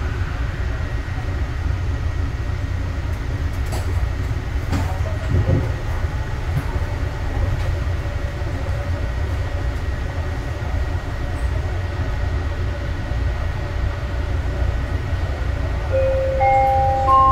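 Steady low rumble inside a Yongin EverLine light-rail car standing at a platform, with a couple of faint clicks. Near the end an onboard chime of three rising notes sounds, announcing an announcement.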